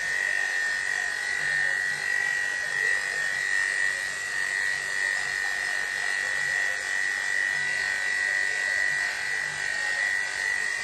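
Electric dog grooming clippers with a #10 blade running steadily, a constant high whine, as they shave the hair under a dog's legs.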